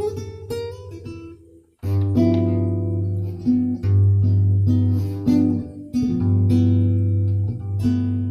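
Acoustic guitar strumming chords that ring out. Near the start the chords die away to almost nothing, then the strumming picks up again just before two seconds in.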